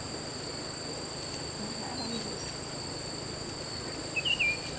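Steady high-pitched insect chorus, two unbroken shrill tones held throughout. A brief warbling call cuts in about four seconds in.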